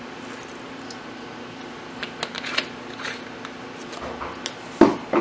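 Glass blender jar and its plastic lid being handled on the counter: scattered light clicks and rattles, then two sharp knocks near the end as the jar is set down. A steady low hum runs underneath.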